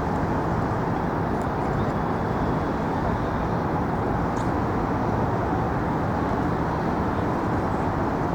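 Steady outdoor city background noise of traffic, an even rumble and hiss with no distinct events.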